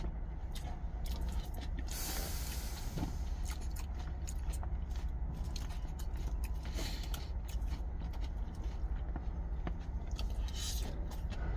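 Close-up chewing and crunching of crisp salad greens, with scattered light clicks and scrapes of a plastic fork against a plastic salad container. A steady low rumble runs underneath.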